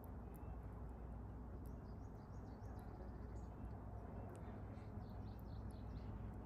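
Faint bird chirps in short runs, about two seconds in and again near five seconds, over a steady low background hum.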